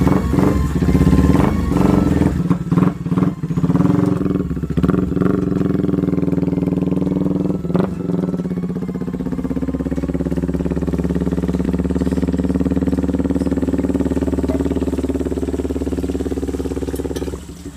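Yamaha Vixion-based contest motorcycle's single-cylinder four-stroke engine revving with quick rises and drops for the first several seconds, then running at a steady, even note as the bike rides off. The sound cuts off suddenly just before the end.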